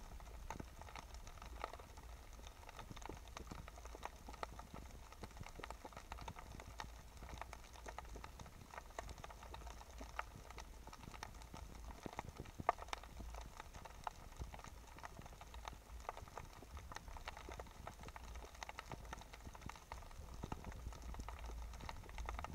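Underwater ambience on a shallow rocky reef: a faint, steady crackle of many scattered sharp clicks over a low rumble of the sea.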